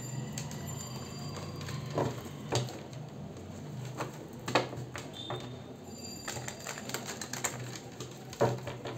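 Tarot cards being shuffled and handled: light rapid flicking clicks with a few sharper taps as cards are set down, over a low steady hum.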